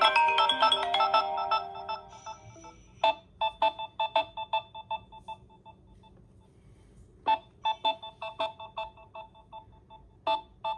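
Smartphone ringtone melody that stops about two seconds in, followed by groups of short, repeated electronic notes, about four a second, with quiet gaps between the groups.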